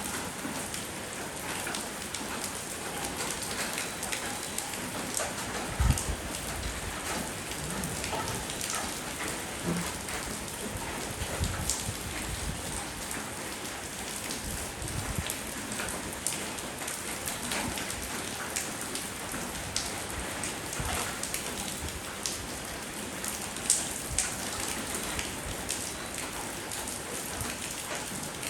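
Steady rainfall with many individual drops striking a hard surface close by. A couple of louder single drops land about six seconds in and again later.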